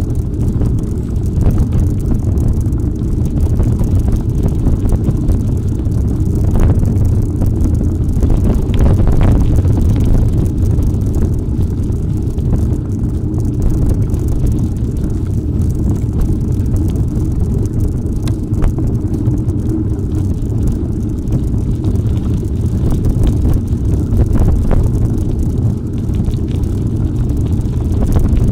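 Steady wind rumble on the microphone while riding a mountain bike off-road, with a few brief knocks or rattles from the bike on rough ground.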